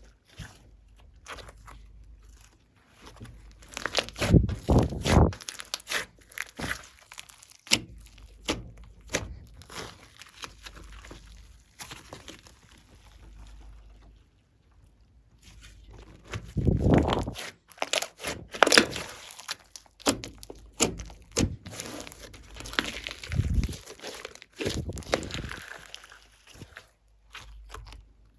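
Hands squishing and stretching glossy slime: sticky clicks and pops in uneven clusters, loudest a few seconds in and again just past the middle.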